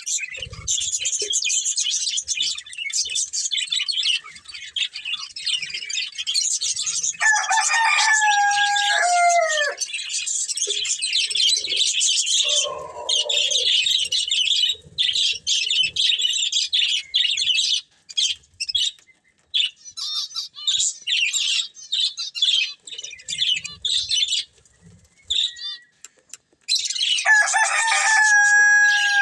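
A pair of budgies chattering and chirping in rapid high twitters, continuous at first and then in short broken spells. Twice, about 7 s in and near the end, a lower, drawn-out call that falls in pitch at its close sounds over the chatter.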